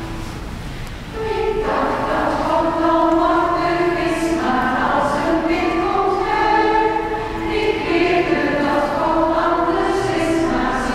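A group of voices singing together, coming in about a second and a half in after a held chord of steady tones dies away.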